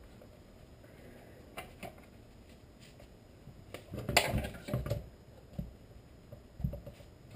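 Hand tools and metal chainsaw parts being handled on a workbench: a few light clicks, then a cluster of knocks and rattles about four seconds in, and two more single knocks near the end.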